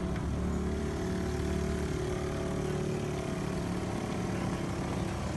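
Small Honda four-stroke motor of an inflatable bumper boat running steadily.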